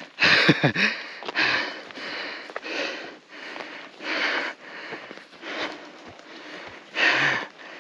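A person breathing hard, with loud, noisy breaths about every second and a half: out of breath and tired from walking with a load.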